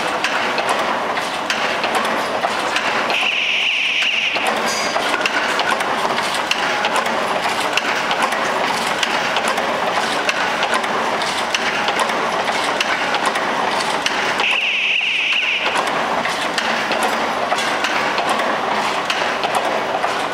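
Automatic shoelace tipping machine running: a steady, fast mechanical clatter from its winding wheels and mechanism. Twice, about eleven seconds apart, a high hiss lasts about a second.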